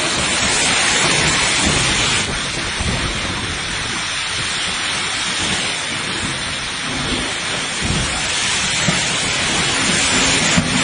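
Heavy rain pouring down in a gusty summer thunderstorm: a steady, dense hiss with irregular low rumbles underneath.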